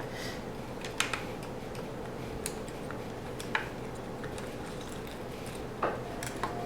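A few sharp small clicks and taps of a screwdriver and screws, spaced a second or more apart, as the screws holding a Roomba 500 series bumper sensor are taken out, over a steady low hum.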